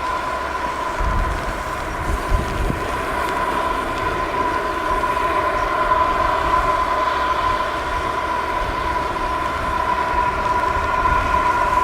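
Four Allison T56 turboprop engines of a UP-3C Orion running with a steady high whine, the pitch holding constant, over a low rumble.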